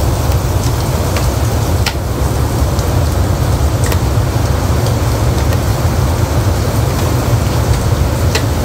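Heavy rain falling steadily, with a few light clicks.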